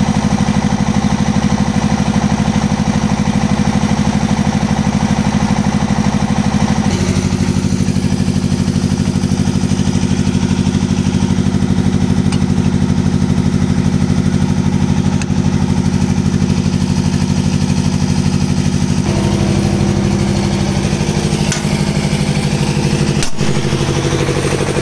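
Excavator's diesel engine running steadily at idle, its note shifting about seven seconds in and again near the end, with a single sharp knock shortly before the end.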